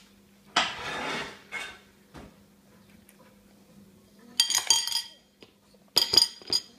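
A metal spoon scraping against a ceramic plate, then clinking and rattling on it in two short bouts of sharp, ringing knocks, the first about the middle and the second near the end.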